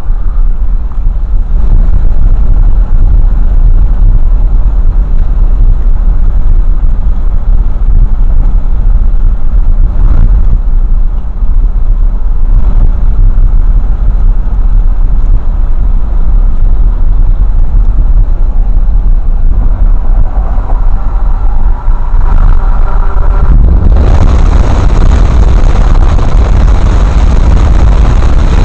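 Loud, steady low rumble of a car driving at road speed, heard from inside the car. About 24 seconds in, a louder rushing hiss of wind and road noise suddenly joins in and keeps on.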